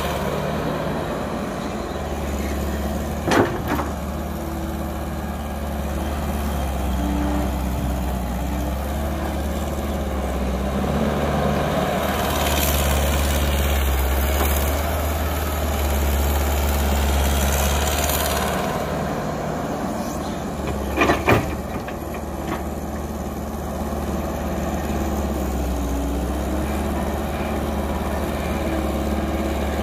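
Caterpillar hydraulic excavator's diesel engine running steadily under load as it digs and swings soil into a dump truck. A rush of soil pours into the truck bed about halfway through, and two sharp knocks come about three seconds in and again near the two-thirds mark.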